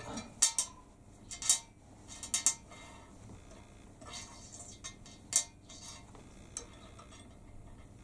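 Cut pieces of steel flat bar clinking as they are set down and shifted on the workbench: a scattering of short sharp metallic clicks, several close together in the first few seconds, the loudest a little past halfway, then fewer and fainter.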